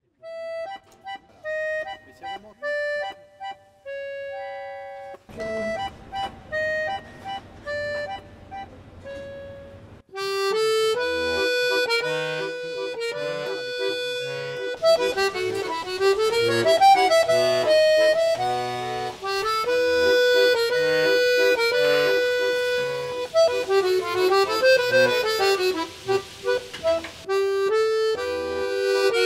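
Background music: a sparse melody for about the first ten seconds, then a fuller, louder arrangement with a bass line.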